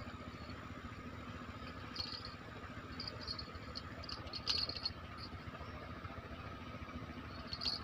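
Insects chirping in short repeated high bursts over a steady low background rush, with a couple of faint clicks.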